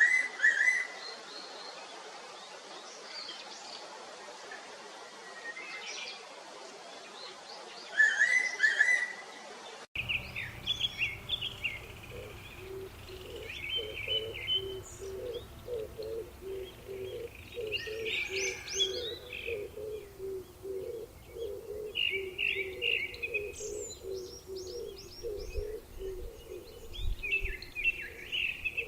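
Birds chirping in short high calls. About ten seconds in the sound changes abruptly, and from then on a low note repeats steadily beneath further bursts of high chirps.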